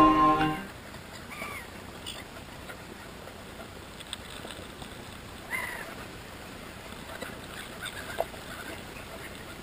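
Faint outdoor ambience with a steady hiss and two short bird calls, about a second and a half in and again about halfway through. A music ending fades out at the very start.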